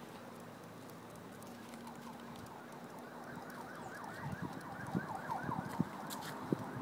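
Footsteps on a paved path, with a few low thuds near the end. About two and a half seconds in, a faint rapid series of short high notes, about four a second, runs for some three seconds in the distance.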